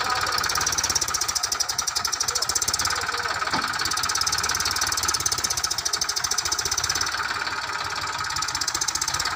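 Eicher 333 tractor's diesel engine running steadily under load as it pulls a trolley heaped with gravel, with a fast, even clatter of firing strokes.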